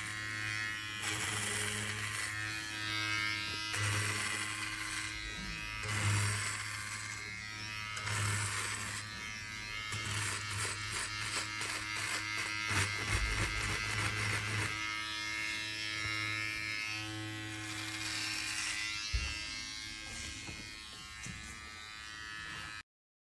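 Rovra cordless hair trimmer with a ceramic top blade set to zero gap, buzzing steadily as it cuts hair. Swells of hiss come with each pass through the hair, and the sound cuts off suddenly near the end.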